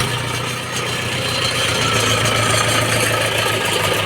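Heavy engine running steadily at a low, even speed, with a faint higher whine rising slightly partway through.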